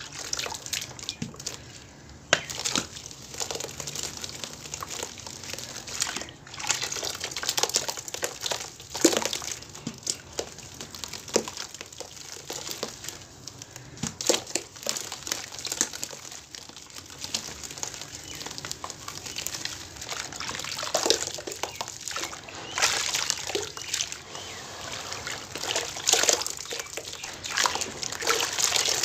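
Hands squeezing and crumbling soaked cement and baking soda chunks in a basin of water, which sloshes, splashes and dribbles back as the pieces break up and the hands swish through it. The splashes and crackles come in an uneven run, with no steady rhythm.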